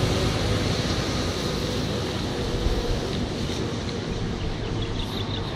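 Wind buffeting the microphone: a steady rushing rumble, with a few faint high ticks near the end.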